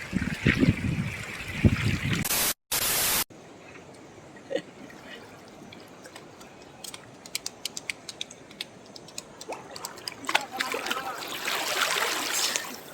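Water trickling and dripping, with scattered small drips and splashes and a swell of rushing water near the end. A loud burst of hiss lasting about a second cuts in between two and three seconds in, after low wind rumble on the microphone.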